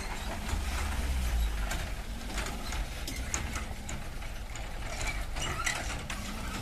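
Low, steady rumble of a light truck's engine as it crawls through deep mud, with irregular clicks and crackles over it.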